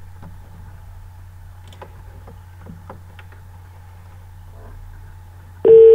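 Low steady hum with a few faint clicks, then near the end a loud, steady beep tone cuts in suddenly.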